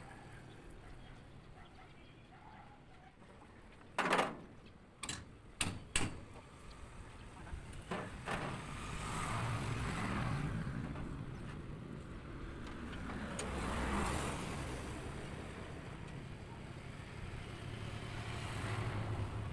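Four sharp knocks on wood in about two seconds, from work on a plywood sign panel, then road vehicles passing, the sound swelling and fading twice.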